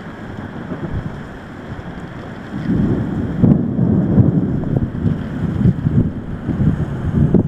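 Thunderstorm with steady rain and wind; a low rumble of thunder swells up about two and a half seconds in and keeps rolling.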